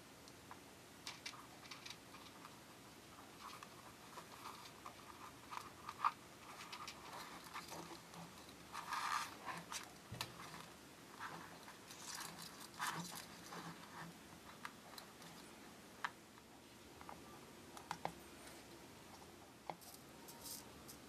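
Faint, scattered handling noises of fingers on a miniature dollhouse's plastic base and thin wires: small clicks and short rustles, with a sharper click about six seconds in.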